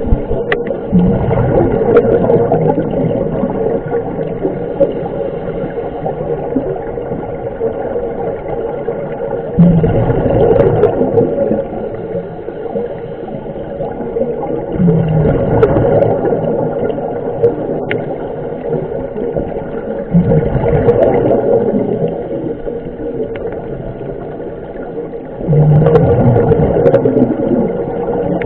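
A scuba diver's regulator breathing, heard through the underwater camera. A rush of exhaled bubbles swells up about every five seconds and fades between breaths, over a steady hum.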